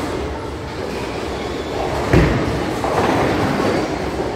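Bowling balls rolling down the lanes with a steady low rumble, and one heavy thud about two seconds in.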